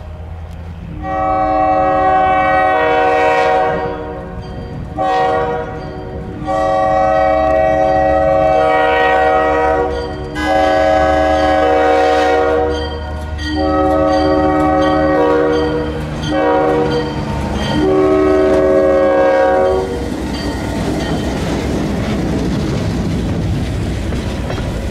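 Diesel freight locomotive's air horn sounding a series of long and short blasts as it approaches a road crossing, over the low rumble of its engine. After the horn stops, the locomotive and tank cars pass close by with a steady rumble and wheel clatter.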